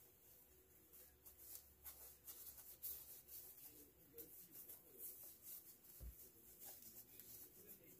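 Near silence, with faint rustling and soft clicks from fabric being handled as a stitched pillow cover is turned right side out by hand. A single low thump about six seconds in.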